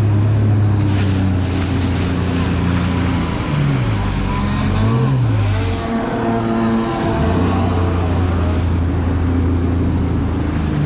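Jet ski engine running at speed over a hiss of water spray; about four to five seconds in the engine note drops and swings back up, then holds steady again.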